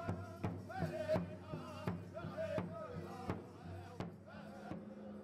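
Powwow drum and singers: a steady drum beat of about three strokes a second with wavering high voices over it. The drumming stops a little before the end, leaving a faint hum.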